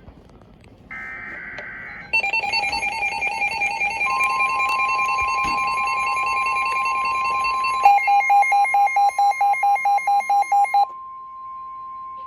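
NOAA Weather Radio tornado warning alert: a short screeching SAME data burst, then a warbling alarm that turns to rapid beeping about 8 s in and stops about 11 s in. Under it, the steady warning alarm tone starts about 4 s in and holds on to the end.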